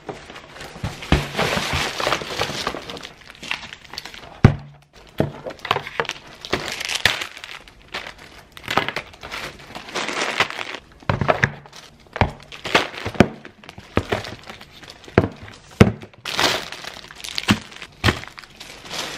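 Plastic shopping bags rustling and crinkling as grocery items are unpacked and set down one after another on a hard tabletop, with many sharp knocks and the odd clink of a glass jar.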